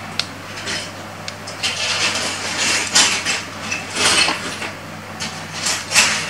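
Plastic LEGO bricks clicking and clattering as small pieces are handled and pressed together: a string of sharp clicks, the loudest about three, four and six seconds in, over a faint steady low hum.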